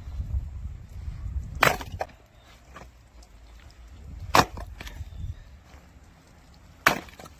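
Firewood being split: three sharp, cracking strikes about two and a half seconds apart.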